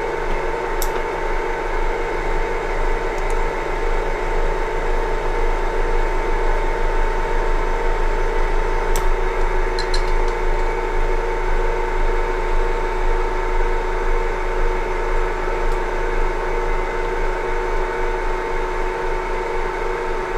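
Metal lathe running under power, its gearing giving a steady whine with a low hum beneath, during a screw-cutting pass for a 3 mm-pitch thread. A few faint ticks come through over it.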